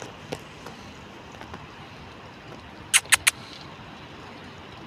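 Steady, faint outdoor background hiss, broken about three seconds in by three quick, sharp crackles in a row.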